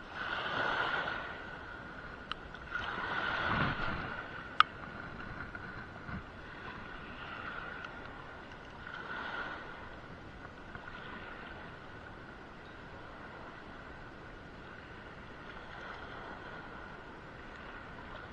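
Wind gusting over the microphone and water lapping around a small boat, in two louder surges early on, with one sharp click about four and a half seconds in.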